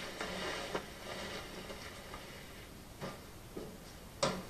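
Faint footsteps and rustling of clothing, with a few soft knocks and one sharper click near the end.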